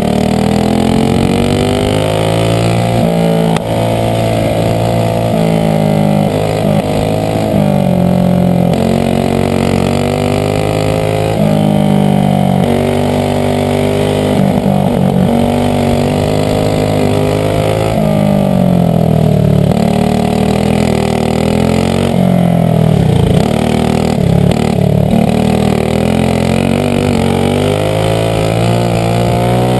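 Methanol-fuelled Briggs & Stratton Animal four-stroke kart engine racing at full throttle, its pitch climbing steadily along each straight and dropping sharply as the driver lifts for the corners, over and over every few seconds.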